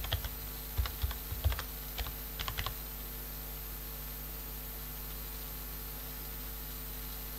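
Typing on a computer keyboard: a quick run of keystrokes over the first three seconds or so, then only a steady low electrical hum.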